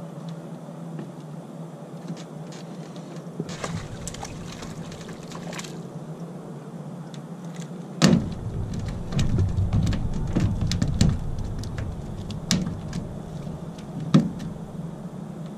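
Bass being hooked and landed from an aluminium jon boat over a steady low hum: a sharp knock about eight seconds in as the hook is set, then a few seconds of rumbling and knocking on the boat during the fight, and a last sharp knock near the end as the fish is landed.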